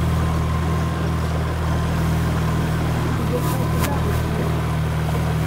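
A motorboat's engine running with a steady low drone, heard from aboard the boat, with a short click about four seconds in.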